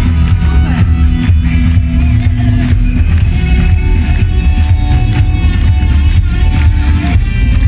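Live rock band playing loudly without vocals: electric guitar holding sustained notes over heavy bass and a steady drum beat.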